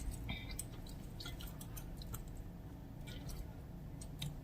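A person chewing food close to the microphone, with scattered soft, wet mouth clicks.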